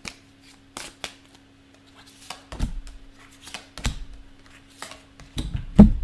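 A deck of cards being shuffled by hand: irregular crisp snaps and flicks as the cards slide against each other. In the second half there are a few duller thumps, the loudest just before the end, as cards are knocked or set down on the table. A faint steady low hum runs underneath.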